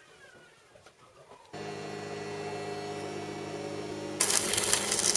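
Stick welder humming steadily once switched on, then an arc struck about four seconds in, crackling and sizzling loudly as a steel tube is welded onto a bicycle frame's bottom bracket.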